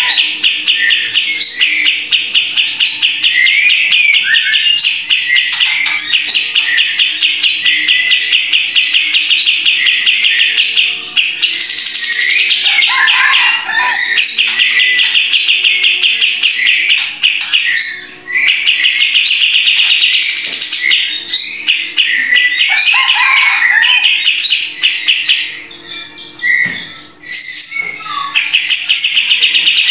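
Olive-winged bulbul singing loudly: long, very fast rattling trills lasting several seconds each, broken by shorter chattering and whistled phrases. There is a quieter, sparser stretch near the end before the rattling starts again.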